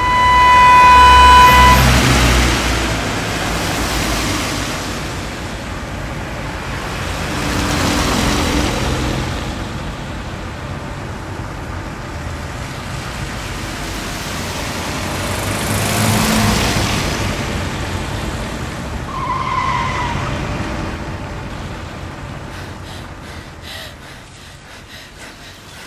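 Road traffic noise: a held pitched tone for about the first two seconds, then slow swells of vehicle noise rising and fading every several seconds. A short falling squeal comes about twenty seconds in, and a few clicks near the end.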